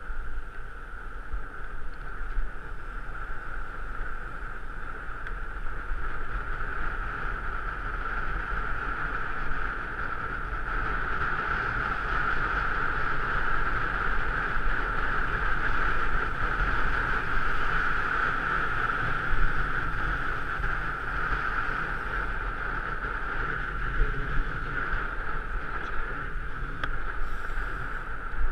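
Steady rush of wind and tyre noise on a moving bicycle, with wind buffeting the camera microphone.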